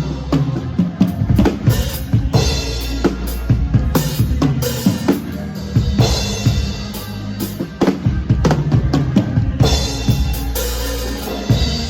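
Live band playing an instrumental passage: a drum kit keeps a steady beat of kick and snare hits over a sustained bass line that moves from note to note.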